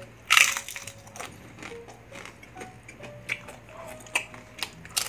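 A loud bite into a piece of fried fish a moment in, then chewing with scattered small clicks close to the microphone, over faint background music.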